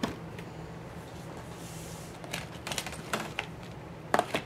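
Light irregular clicks and taps of plastic as hands handle a manual die-cutting machine and its clear cutting plates, with a small cluster of clicks past the middle and two more near the end.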